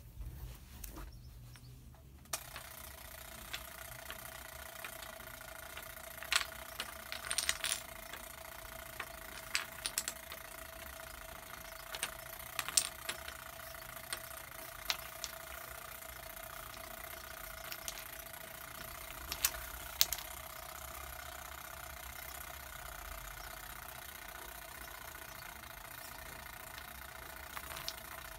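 Wooden dominoes being set down by hand on a tile floor: sharp, light clicks every second or so, sometimes two or three close together, over a steady background hum.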